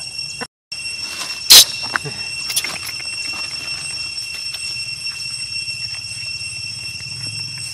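Steady high-pitched drone of insects, cut off for a moment near the start, with one short, very loud sharp sound about a second and a half in and a few faint clicks after it.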